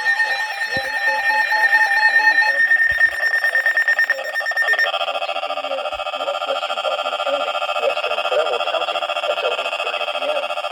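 Emergency Alert System alarm tones announcing a severe thunderstorm warning. A steady high electronic tone with pulsing beeps changes to a buzzing pattern about two and a half seconds in, then about five seconds in to a steady, harsh multi-tone attention signal.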